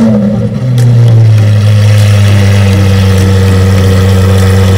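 Lamborghini Aventador SVJ's V12, fitted with a Gintai F1 exhaust, settling from its start-up flare into idle: the revs fall away over the first half-second, then a deep, steady idle holds.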